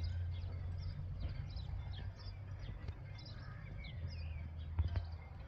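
Many small birds chirping in quick, short calls over a steady low rumble, with one sharp knock just before the end.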